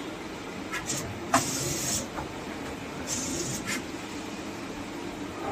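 CNC lathe running with a steady machine hum; a sharp click about a second and a half in is followed by a short hiss, and a second short hiss comes about halfway through.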